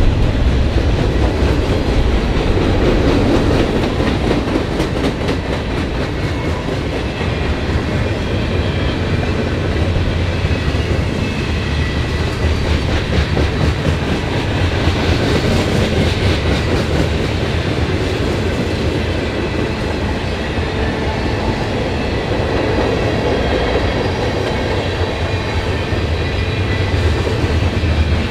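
Freight train rolling past at close range, its wheels clacking over the rails above a steady low rumble.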